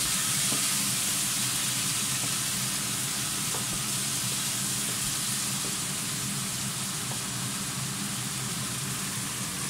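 Salmon pieces sizzling steadily as they sauté with ginger in a stainless steel saucepan, briefly stirred with a wooden spatula, over a steady low hum.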